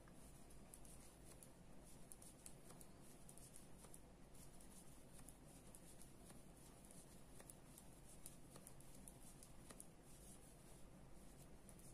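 Faint, irregular light clicks and scratches of 3.5 mm metal knitting needles and yarn as stitches are knitted by hand, over near silence.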